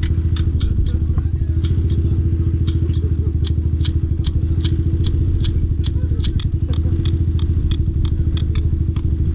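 Kawasaki Z125 Pro's single-cylinder engine idling steadily, with an even turn-signal tick, about three clicks a second, played through the phone by the Indimate Bluetooth indicator-sound app.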